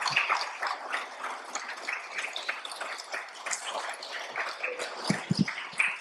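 Applause from a small audience thinning out into scattered claps, with a few low thumps near the end.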